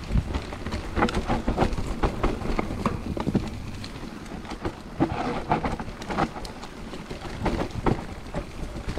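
Mountain bike rattling and clattering over a rough trail: a quick, irregular run of knocks from the wheels, chain and frame, over a low rumble.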